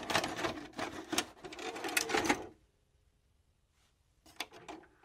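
Rapid mechanical clicking and clattering for about two and a half seconds, used as an intro sound effect. After a short pause, a few more clicks come near the end.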